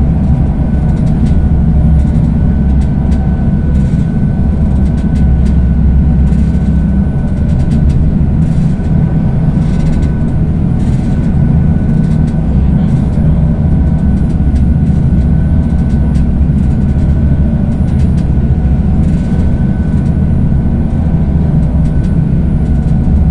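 A passenger ferry's engines drone steadily under way, with a thin steady whine above the low rumble, mixed with rushing wind and water from the wake.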